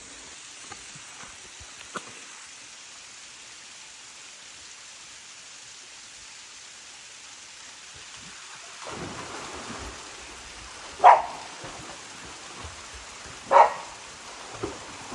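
Australian cattle dog playing in a muddy pool: a steady hiss of water, splashing about nine seconds in, then two short, loud barks about two and a half seconds apart.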